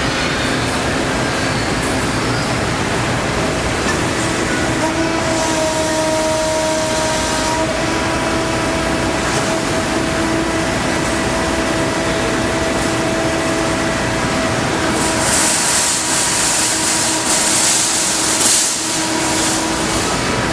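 Salvagnini L3-30 3000-watt CNC fiber laser cutter running: a steady machine drone with several steady whining tones, and a louder high hiss for about four seconds, starting some fifteen seconds in.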